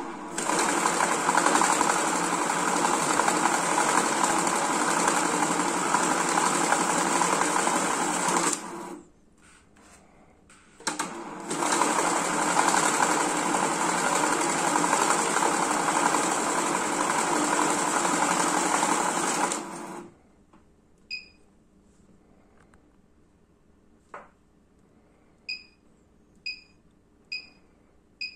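Hitachi IH-110 banknote counting machine running, feeding a stack of notes through with a fast, steady whirring rattle in two runs of about eight or nine seconds each, with a short pause between. Near the end come a click and several short, high electronic beeps.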